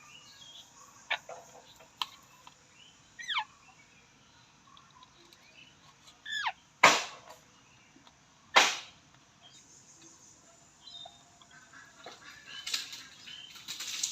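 Alexandrine parakeet calling: a few short squawks that slide downward in pitch, then two loud harsh screeches less than two seconds apart about halfway through, and softer chattering near the end.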